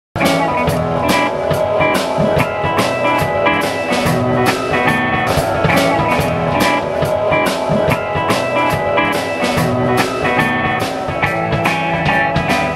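Live blues band playing an instrumental passage on electric guitars and drum kit, with a steady beat of about two drum hits a second. The music cuts in abruptly at the start.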